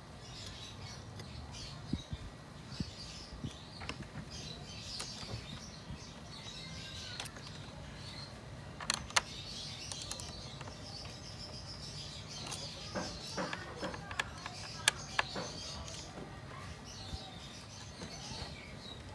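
Scattered sharp plastic clicks and knocks from hands refitting the mass airflow sensor connector and air intake parts in a car engine bay, the loudest about nine seconds in and again near fifteen seconds. Birds chirp in the background throughout.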